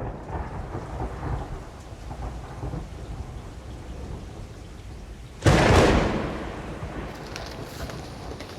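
Monsoon rain falling steadily with low rumbling thunder; about five and a half seconds in, a sudden loud thunderclap that rolls away over a second or so.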